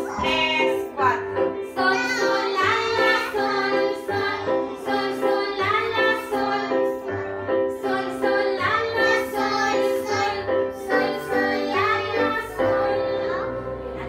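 Children singing a song with a woman, to chords played on an electronic keyboard. Near the end the voices stop and a keyboard chord is held.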